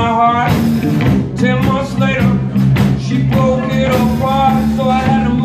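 Rock trio playing live: electric guitar, bass guitar and drum kit, with long held, bending notes over the beat.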